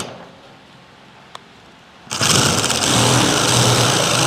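Metal-shear attachment on a cordless DeWalt impact driver cutting corrugated steel roofing sheet: the cutting stops, pauses briefly, then starts again about two seconds in and runs steadily.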